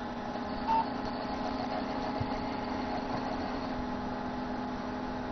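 Desktop computer running just after power-on, its fan making a horrible steady noise because it is hitting something, a loose wire. About a second in, one short high beep from the motherboard's POST speaker.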